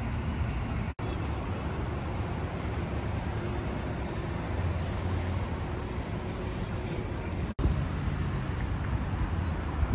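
Steady street traffic rumble, a low even hum of passing buses and cars, broken by two very short dropouts about a second in and near the end.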